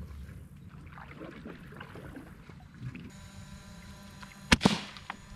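Boat motor running low and steady, joined by a faint whine about three seconds in. Two sharp knocks a moment apart come about four and a half seconds in, the second ringing briefly.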